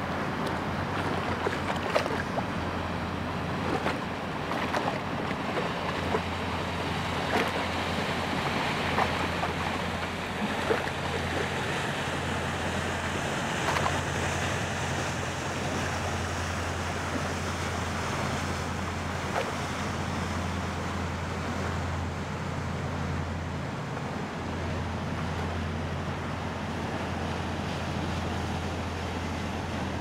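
Inland cargo ship passing, its 800 hp Caterpillar diesel giving a steady low drone under the rush of churning water from the bow wave, with splashes through the first half.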